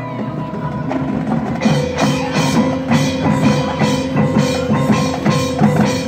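Marching band playing: held notes at first, then from about a second and a half in a steady beat of sharp percussion hits joins in, about two a second, under a long sustained note.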